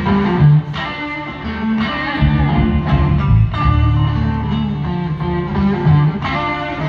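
Live blues band playing an instrumental passage, led by electric guitar over a prominent bass line and drums.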